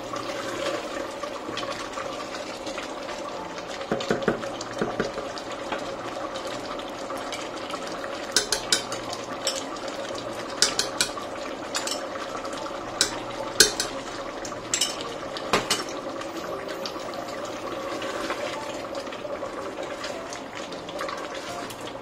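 Wooden spoon stirring and scraping a thick meat and tomato masala in a stainless steel pot, the mixture hissing as it fries. Through the middle, a run of sharp clicks as a metal spoon scrapes and taps yogurt out of a bowl into the pot.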